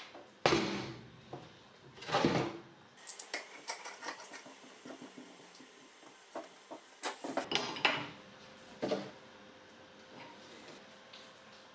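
Metal clinking and knocking as a small hydraulic cylinder is handled on a steel workbench and a hydraulic hose fitting is threaded on and tightened with a wrench. There are two heavier knocks about half a second and two seconds in, then scattered clusters of light metallic clicks.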